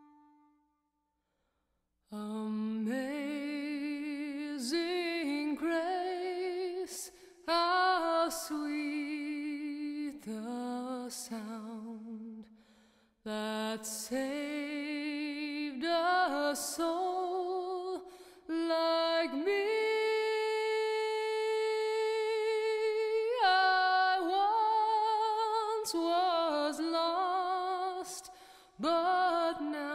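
Slow vocal music: a singer with wide vibrato sings in long phrases with short breaks between them, starting about two seconds in after a moment of silence.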